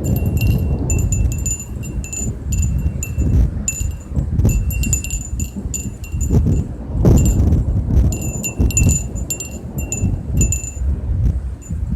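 Wind chimes ringing irregularly as the wind moves them, many quick strikes at the same few high notes. A loud, fluctuating low rumble runs underneath.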